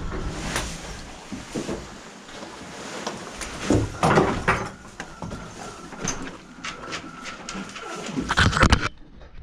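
Rustling and brushing of a fabric horse rug being handled on a pony, with shuffles and light knocks. It is loudest just before the end, as the rug is pulled close past.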